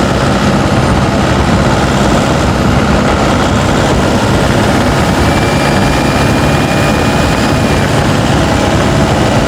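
Turbocharged diesel pickup engine pulling steadily under load, heard loud and close from a microphone under the hood. A faint high whistle rises over it about halfway through for around three seconds.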